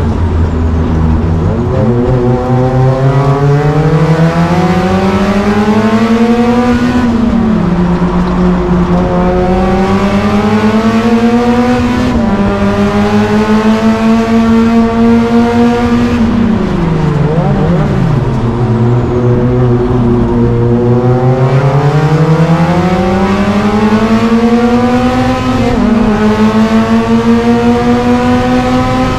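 Nissan Silvia S15 race car's engine at full throttle, climbing steadily in pitch and dropping sharply at upshifts about seven and twelve seconds in. The pitch then holds steady, falls away as the car slows and downshifts, climbs again and drops at another upshift near the end.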